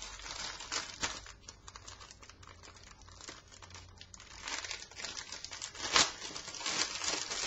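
Plastic packaging of vacuum storage bags crinkling and crackling as the pack is opened and the bags are handled, in irregular crackles with a sharper one about six seconds in and another at the end.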